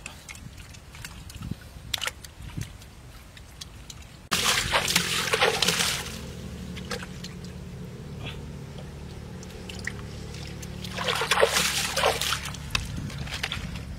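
Hands splashing and sloshing muddy water in a shallow pool, with a sudden loud burst of splashing about four seconds in and another near the end, and quieter trickling and sloshing in between.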